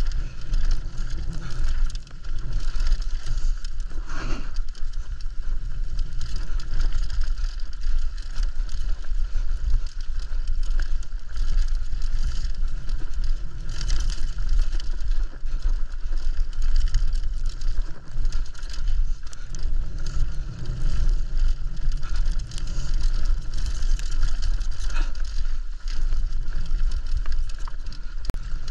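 Mountain bike ridden fast downhill over rough ground: tyres rolling over dirt and rocks and the bike rattling and knocking over bumps, under heavy wind rumble on the action camera's microphone.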